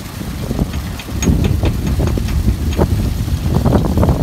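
An engine running with an uneven low rumble, joined from about a second in by irregular sharp metallic ticks, several a second.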